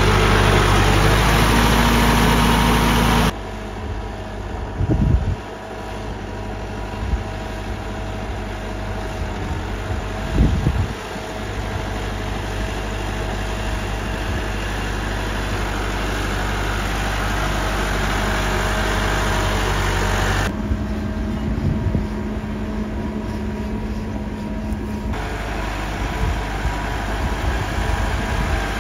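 Massey Ferguson 385 tractor's four-cylinder diesel engine running steadily while working through flooded mud, loud and close for the first three seconds, then more distant. Two short dull thumps stand out, about five and ten seconds in.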